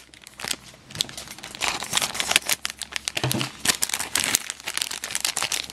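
Foil blind bag crinkling and crackling as it is handled in the hands, in a rapid, irregular run of small crackles.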